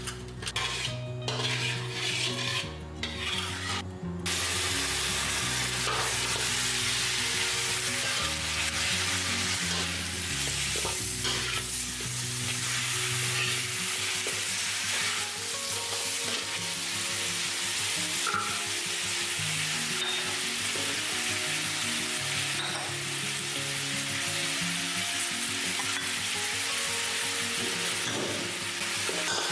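Metal spatula clinking and scraping on rock sugar crystals in a wok. About four seconds in, a steady sizzle starts suddenly as pork leg pieces fry in the melted sugar and are stirred with the spatula.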